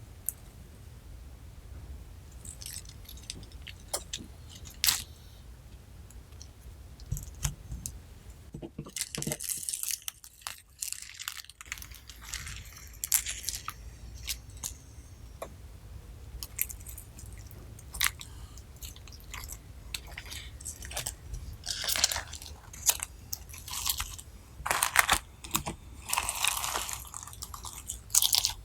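Slime being worked with crunchy add-ins, giving irregular crackles and clicks that come much thicker near the end.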